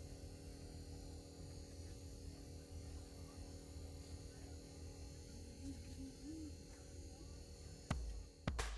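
A low steady hum with a thin high hiss, then a sharp knock about eight seconds in and another just before the end.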